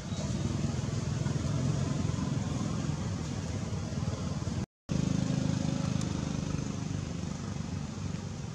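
Steady low rumble of vehicle engine noise, broken by a brief silent gap just before halfway through.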